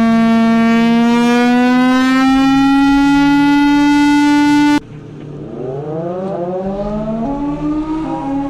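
Two warning-siren recordings back to back. The first is a loud held siren tone that rises slowly in pitch and cuts off abruptly about five seconds in. The second siren then winds up from a low pitch, rising and climbing further in steps.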